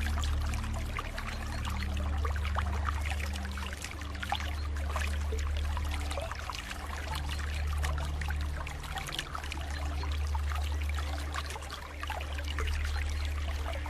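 Running water trickling and babbling, like a small stream, over soft low sustained music notes that shift every couple of seconds.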